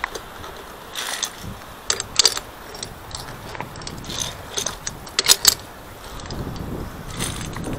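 Metal clicks and clinks of via ferrata carabiners sliding along and knocking on the steel safety cable during a climb, in scattered irregular strokes, the loudest about five seconds in.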